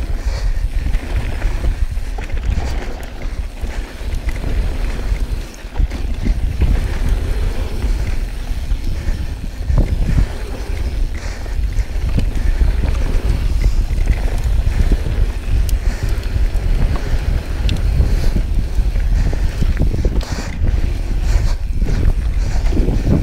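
Wind buffeting an action camera's microphone over the steady rumble and rattle of a Yeti SB6c carbon full-suspension mountain bike rolling down a rocky dirt trail, with short clicks and knocks from the bike.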